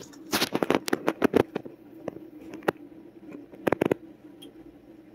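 Cat eating wet food from a ceramic dish: a quick run of wet chewing and smacking clicks about half a second in, then a single click and a close pair later on.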